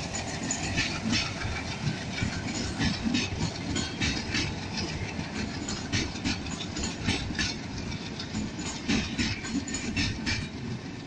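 LHB passenger coaches rolling past close by: a steady rumble of steel wheels on the rails, with a clickety-clack of wheel sets clicking over rail joints in irregular clusters.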